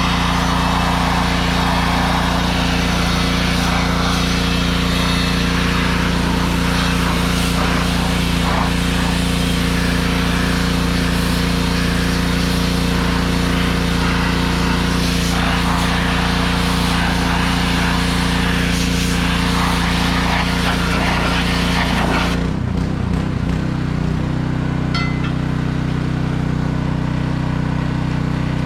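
Small gas engine of a pressure washer running steadily under a loud hissing spray. About three-quarters of the way through the spray cuts off and the engine keeps running.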